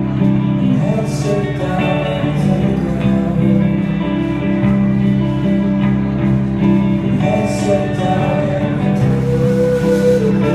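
A rock band playing live: electric guitars and bass over a drum kit.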